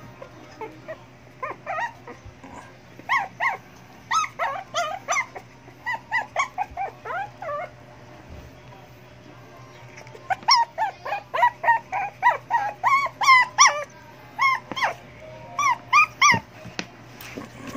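Shih tzu whining and yelping in rapid strings of short, high cries that bend in pitch, begging to be let out. There are two long bouts with a pause of about two seconds between them.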